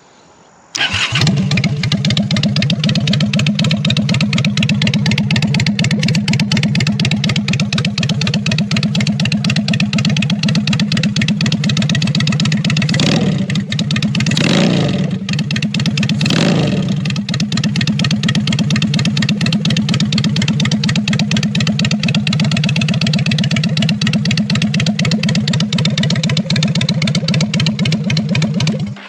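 Custom-built motorcycle engine started on the electric start button, catching within about a second and then running steadily. The throttle is blipped three times around the middle, and the engine is shut off right at the end.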